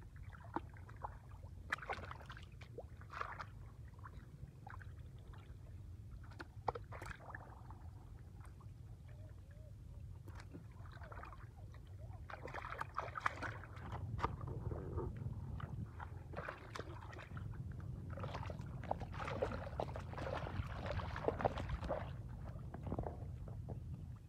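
Splashing and sloshing in shallow muddy water and wet mud as fish are grabbed by hand and dropped into a plastic bucket. Scattered sharp splashes, busier in the second half, over a steady low rumble.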